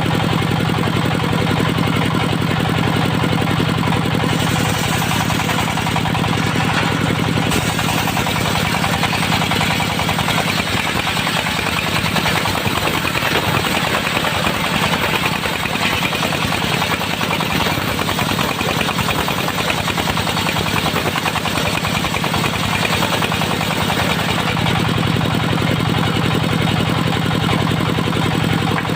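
Diesel engine of a mobile circular sawmill running steadily. From about a third of the way in until near the end, its steady note breaks up and a harsher, higher noise comes in, then the engine settles back to its even running.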